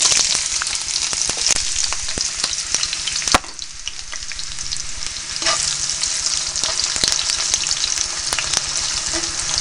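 Sliced onions sizzling and crackling in hot canola oil, just added to the pan, with many small pops. A sharp knock comes about three and a half seconds in, after which the sizzle eases a little, then builds again.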